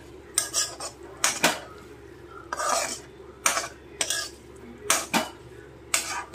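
Steel spoon scraping and clinking against a kadai as diced ridge gourd is stirred and turned, about ten sharp strokes at an uneven pace with one longer scrape near the middle. The gourd has cooked down dry, so there is little sizzle under the strokes.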